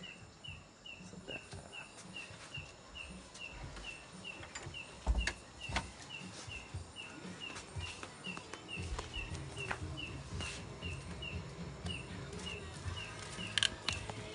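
A small creature chirping in a steady rhythm: one short, high chirp repeated evenly, about two or three times a second. A couple of dull knocks come about five seconds in.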